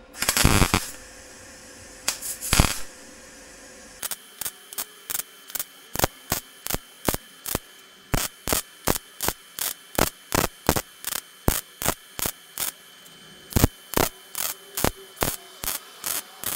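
MIG welder arc crackling in short trigger pulses while stitch-welding a stainless steel turbo downpipe: two longer bursts in the first few seconds, then from about four seconds in an even run of short bursts about three a second.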